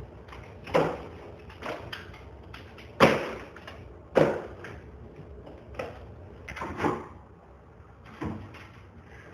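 Irregular heavy knocks and thuds of wall demolition, about eight blows in nine seconds, each ringing briefly in the room; the loudest land about three and four seconds in.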